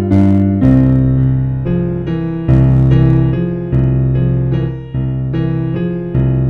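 Background instrumental music with held chords over a low bass, changing every second or so.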